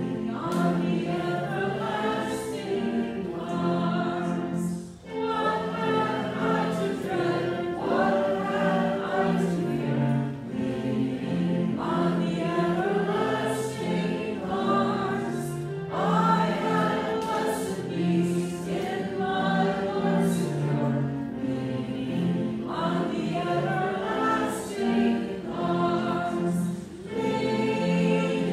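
Choral music: a choir singing a hymn, in phrases a few seconds long with short breaths between them.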